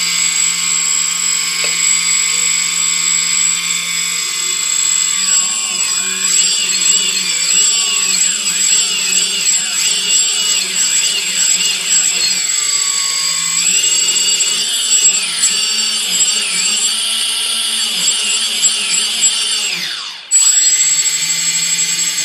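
Brushless motors of a quadcopter spinning with no propellers fitted, giving a high electric whine. It holds steady at first, then rises and falls in pitch over and over as the throttle is worked, drops away briefly near the end and comes straight back up steady.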